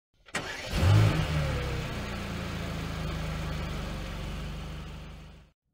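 An engine starts with a sharp click and a loud low burst, then runs with a steady low rumble made of fast even pulses, fading and stopping just before the end.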